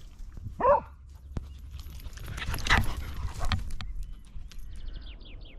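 A dog gives one short, high yelp-like bark, then a louder scuffle about three seconds in as the dogs move about on the path, with a low rumble of wind on the microphone. Near the end a bird calls with a quick run of short falling chirps.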